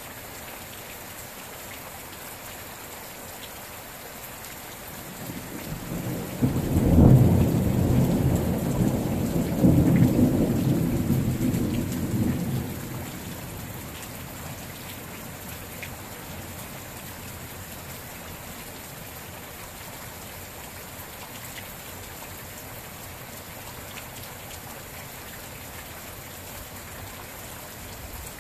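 Steady rain, with a low roll of thunder that builds about five seconds in, swells twice and dies away before the middle of the stretch.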